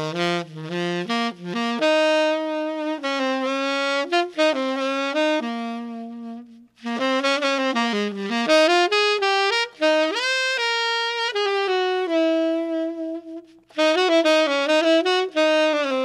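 Unaccompanied saxophone playing a slow, expressive jazz melody in three phrases, with short breaths between them about six and a half seconds in and again near fourteen seconds.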